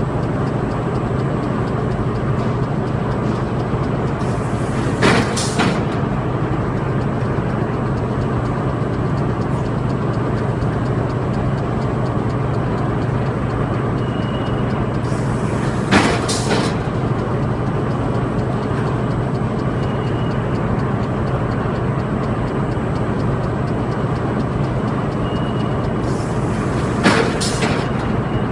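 Felt production line machinery running: a steady, loud drone with a low hum, broken by a brief sharp hiss about every eleven seconds.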